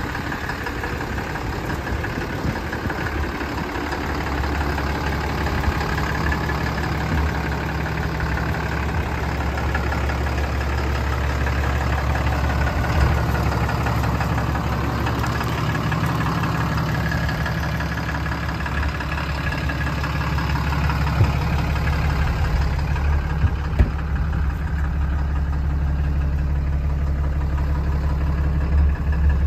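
2011 Ram 5500 Heavy Duty's 6.7-litre Cummins inline-six turbo-diesel idling steadily.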